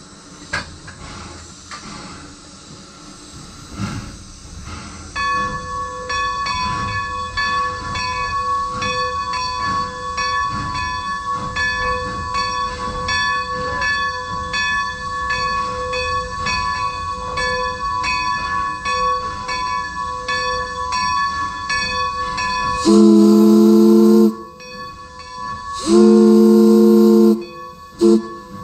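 Nevada Northern Railway No. 40, a 1910 Baldwin 4-6-0 steam locomotive, running with steam hissing. Its bell rings at a steady pace from about five seconds in. Near the end its steam whistle blows two long blasts and a short one, the opening of the long-long-short-long grade-crossing signal.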